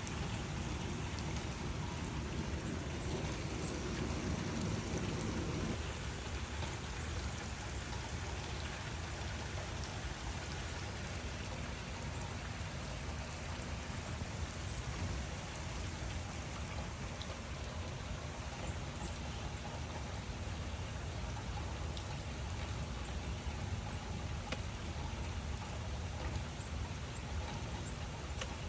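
Steady rain falling, an even hiss with scattered individual drop taps. A low rumble sits under it for about the first six seconds and then stops suddenly.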